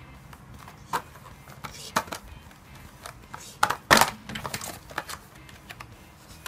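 Hands handling and opening a cardboard retail box with a clear plastic window: scattered clicks and crinkles, the loudest cluster just before four seconds in.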